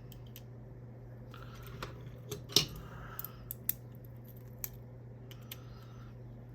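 Small parts of a fidget toy being handled and unscrewed: light clicks and brief scraping, with a sharper click about two and a half seconds in, over a steady low hum.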